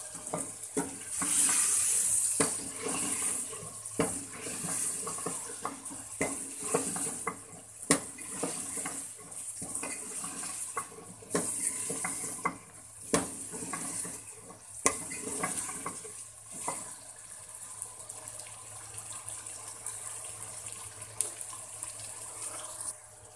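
A metal ladle stirring chicken and vegetables in an aluminium pot, knocking and scraping against its sides, while the food sizzles in the hot oil, the hiss swelling in bursts as it is turned over.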